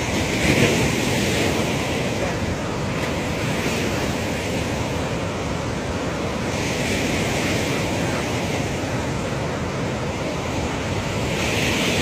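Floodwater pouring through the open crest gates of the Nagarjuna Sagar Dam's spillway: a steady rushing of water with wind blowing on the microphone.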